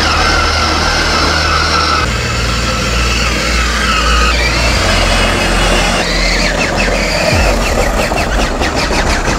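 Grave Digger 24-volt Power Wheels ride-on truck driving, a steady low rumble with a whine that shifts pitch every couple of seconds.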